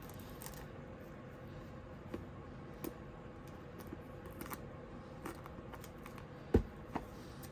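A plastic-wrapped tarot box being handled: scattered light taps and scrapes, with a louder knock about six and a half seconds in and a smaller one just after.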